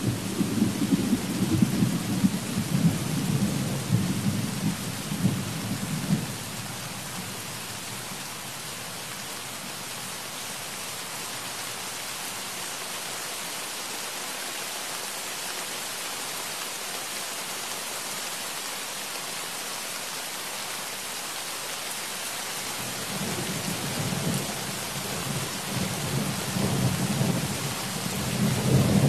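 Steady rain with rolling thunder. The low rumble fades out after about six seconds, leaving just the rain, and builds again over the last several seconds.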